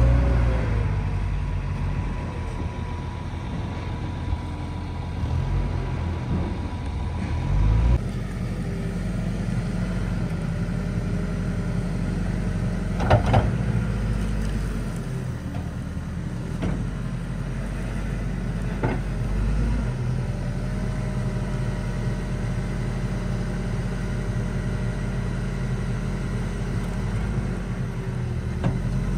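Heavy diesel engine running steadily. About eight seconds in, a cut brings a JCB wheel loader's diesel engine working as it cuts silage from a clamp with a grab, with a few sharp knocks along the way.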